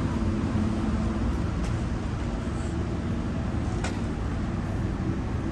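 Street traffic: motor vehicles running close by, a steady low engine rumble and hum, with a short sharp click about four seconds in.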